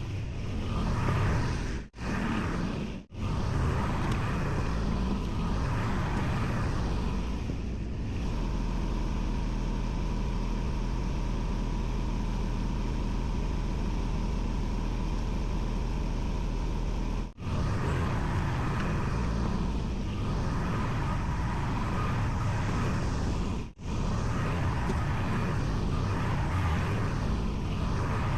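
Kubota L2501 compact tractor's three-cylinder diesel engine running steadily under working load, its note rising and easing as the tractor grades dirt with the loader bucket. The sound drops out briefly four times.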